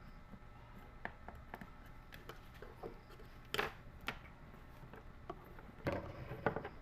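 Scattered light clicks and knocks of a multimeter's test leads and the electric kettle being handled during a resistance check, loudest about three and a half seconds in and again near the end.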